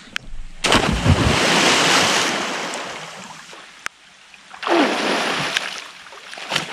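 A man in clothes jumping into a pond: a big splash about half a second in, then churning water that dies away over a couple of seconds. A second rush of splashing and pouring water follows as he surfaces and stands up.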